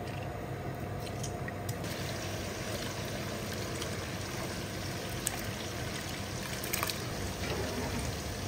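Large pot of water boiling steadily, with rice poured in from a bowl partway through.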